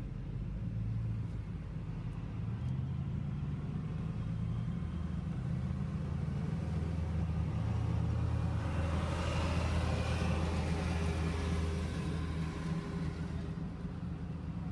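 An engine running with a steady low rumble, growing louder through the middle and easing off again toward the end.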